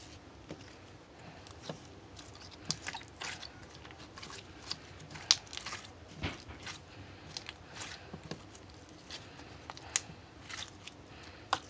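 Slime being squeezed and worked by hand, making irregular sharp clicks and crackling pops, a few much louder than the rest.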